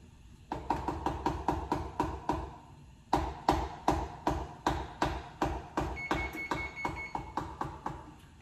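A spoon or fork stirring a mixture in a bowl, clinking rapidly and rhythmically against the bowl's side at about four to five strokes a second, with a short pause about three seconds in.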